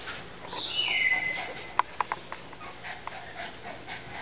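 Cavalier King Charles spaniel puppy giving a high whine that slides down in pitch, followed by a few short, sharp squeaks.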